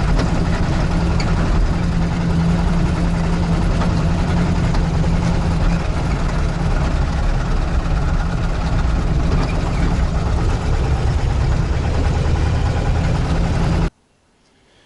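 UAZ-469 engine running steadily under way, an engine that has lost all oil pressure and developed a knock, which the owner suspects is a spun bearing shell. The sound cuts off abruptly about a second before the end.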